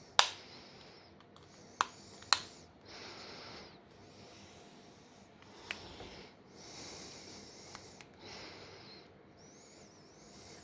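Small hand tools and plastic phone parts being handled close up: a few sharp clicks, two of them loud, between stretches of soft rubbing and scraping.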